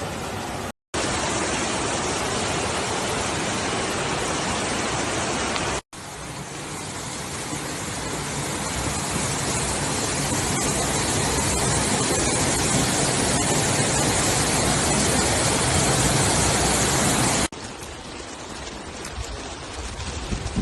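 Steady rushing of floodwater, a dense even roar with no pitch, broken by two short dropouts about one and six seconds in. It swells slowly over the middle stretch, then drops suddenly to a quieter rush near the end.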